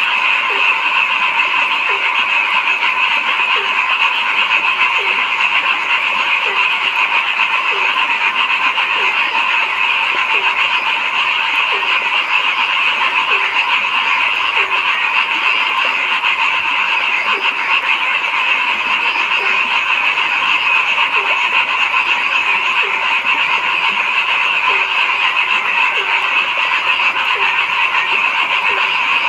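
A dense, unbroken chorus of frogs calling, with one deeper frog croaking at an even pace a little more than once a second over the top.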